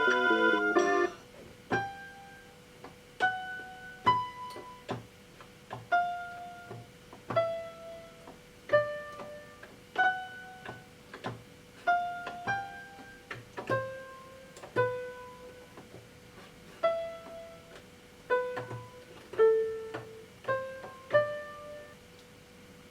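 Casio SA-75 electronic keyboard with a piano voice: a quick busy run of notes stops about a second in, then single notes are played one at a time, about one a second, each dying away quickly. A faint steady tone runs underneath.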